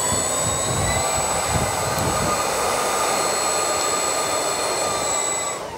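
Two electric motors spinning the 3D-printed centrifugal lift fans of a skirtless RC hovercraft: a steady high-pitched whine over a rush of air, starting to wind down right at the end as the power is cut.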